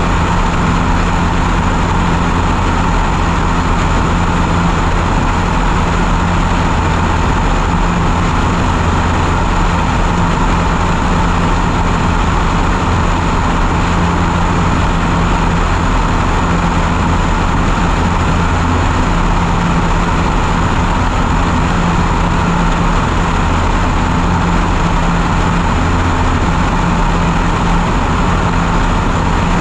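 Light high-wing propeller aircraft's engine and propeller running steadily at climb power just after takeoff, a constant low drone. Airflow rushes over the camera mounted under the wing.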